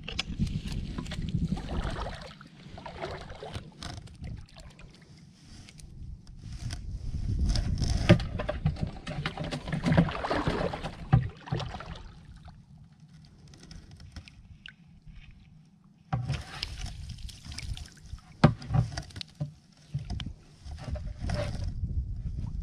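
Shallow water sloshing and splashing around rocks as a scoop net and stick are worked through it, in uneven spells with a few sharp, louder splashes.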